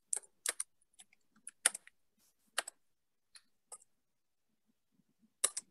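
Irregular clicking at a computer, some ten sharp clicks and taps spaced unevenly, with a louder pair near the end.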